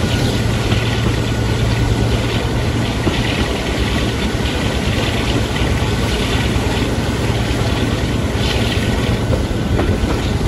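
Class 52 diesel-hydraulic D1015 'Western Champion' running along the line: a steady low drone from its twin Maybach engines, mixed with wheel and rail rumble and clatter, heard from an open window of the train.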